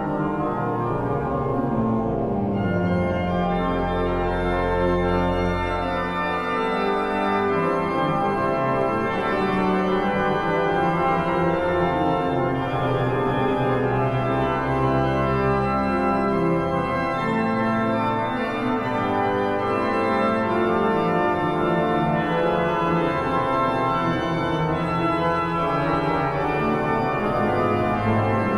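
Hinsz pipe organ playing in several voices at once, with held chords and deep pedal bass notes that come and go.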